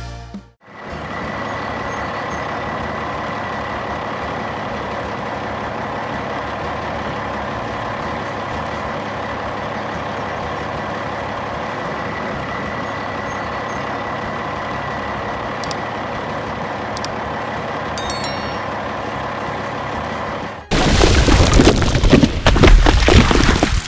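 Steady drone of a heavy truck or construction-vehicle engine running, with a faint high whine held over it. Near the end a much louder rough, rumbling noise cuts in suddenly for about three seconds.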